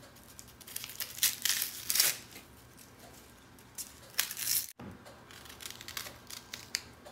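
Dry papery onion skin being peeled and torn off by hand, crinkling and tearing in two short spells, followed by a few light clicks.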